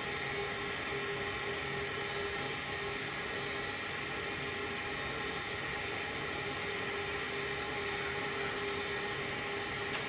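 Natural-gas HVAC heating unit running its pre-ignition startup stage: a steady mechanical whir and hum with several constant tones, and one small click near the end. It is the cycle that repeatedly fails to light the burner, the intermittent no-ignition fault.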